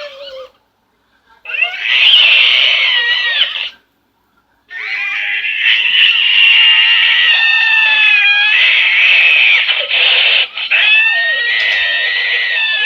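Animated spinning-head cat toy playing its recorded cat screeching: one screech of about two seconds, a short pause, then a long run of wavering yowls lasting about eight seconds.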